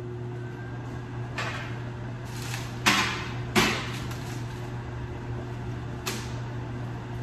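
Microwave oven running with a steady hum while butter melts. Sharp knocks and clatters of kitchen items come through it, the loudest two about three seconds in.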